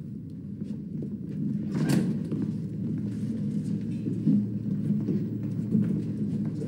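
A low, steady rumble of room ambience under scattered footsteps and shuffling as a group of people file out of a room, with one louder knock about two seconds in.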